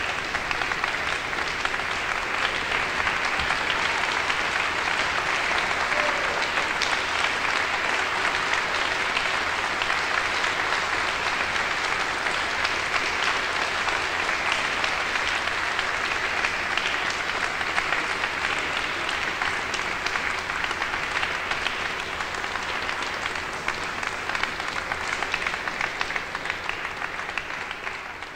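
Concert audience applauding, a dense and even clapping that begins to thin out near the end.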